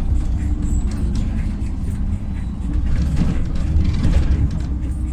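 Cabin noise of a LiAZ 5292.67 city bus under way: the steady low rumble of its compressed-natural-gas YaMZ-53624 engine and drivetrain, with scattered small rattles.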